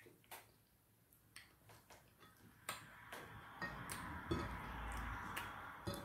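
Faint, scattered wet clicks and smacks of someone eating okra soup and fufu with her fingers. They grow denser from about three seconds in, with chewing and finger-licking mouth noises.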